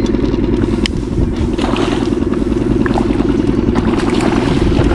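Small four-stroke gas outboard motor running steadily at low trolling speed, a fast even pulsing.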